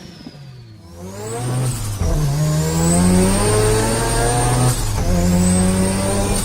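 Turbocharged car engine pulling hard, its pitch climbing steadily with a high turbo whistle rising alongside. It is off-throttle for the first second with the whistle falling, and there is a brief break for a gear change about three-quarters of the way through before it climbs again.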